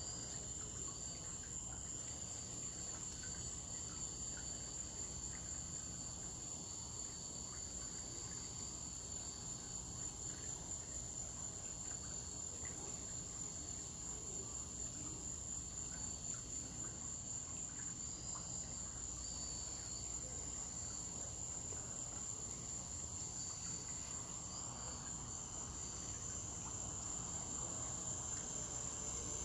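Night insects trilling steadily: one continuous high-pitched trill with a fainter wavering one below it, over a low background rumble.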